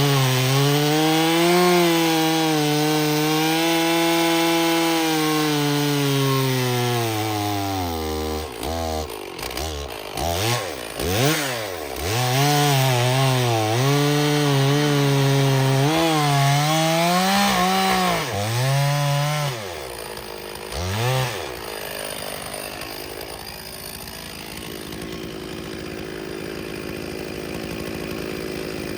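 Stihl chainsaw cutting through seasoned oak rounds, its engine speed sagging and recovering as the bar works through the wood. About eight seconds in the saw drops off and is revved up and down in quick blips before cutting steadily again. After about twenty seconds it falls back to a quieter, steady running.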